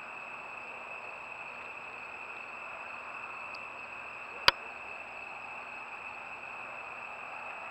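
Steady, high-pitched night chorus of crickets over an even hiss, with a single sharp click about four and a half seconds in.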